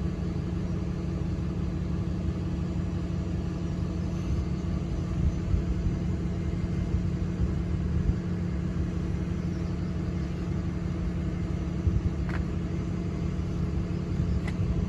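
A road vehicle's engine idling steadily, a constant low hum with rumble.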